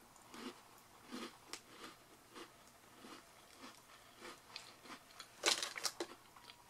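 Chewing a mouthful of shortbread cream cookie: faint, soft crunching chews about two a second, with a louder cluster of chews near the end.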